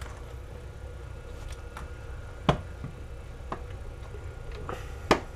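A few light clicks and taps from an airsoft AEG gearbox shell as its upper half is seated onto the lower half by hand; the two loudest clicks come about two and a half seconds and five seconds in.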